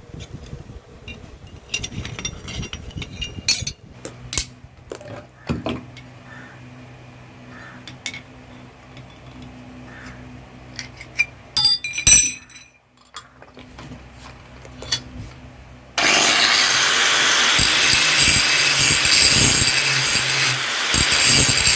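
Metal tools in a blacksmith's workshop: scattered clinks and knocks over a low steady hum, with one louder knock about twelve seconds in. About sixteen seconds in, a loud steady hissing noise starts abruptly.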